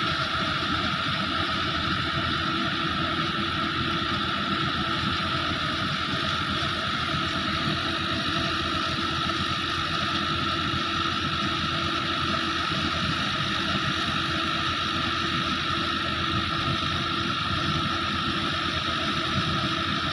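Fiat 640 tractor's diesel engine running steadily, driving a threshing machine, mixed with the thresher's steady drum noise as crop is fed in.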